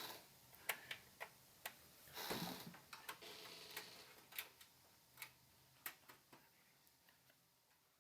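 Faint, irregular clicks and light knocks from computer parts and a USB connector being handled, with a brief rustle about two seconds in. The clicks thin out toward the end.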